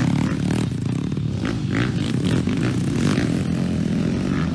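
Small dirt bike engines running and revving, their note rising and falling repeatedly, with more than one engine heard at once.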